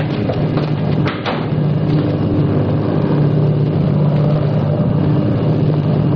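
Steady low drone of airliner engines, a radio-drama sound effect for the aircraft in flight, with a brief knock about a second in.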